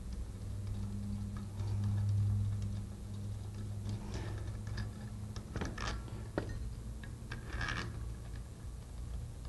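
Bolts being handled and threaded at the relief valve cap of a sliding-vane pump: after about four seconds, a scattered run of light metallic clicks and clinks for several seconds. A steady low hum runs underneath and swells briefly near the start.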